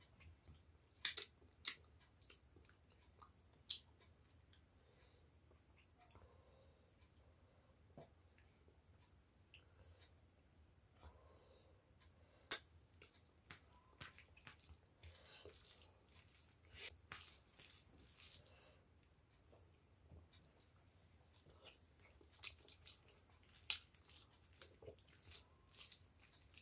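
Quiet hand-eating sounds: a few sharp mouth clicks and smacks from chewing, and soft squishing as rice is mixed with curry by hand. Under them runs a steady, fast-pulsing high chirp.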